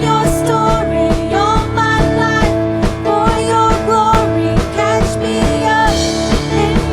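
Worship band playing an instrumental passage: a drum kit keeping a steady beat under sustained chords, with a bending melodic lead line above them.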